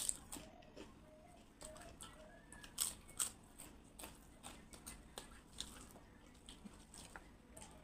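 Close-miked eating sounds: scattered soft crunches and wet mouth clicks as a person chews food.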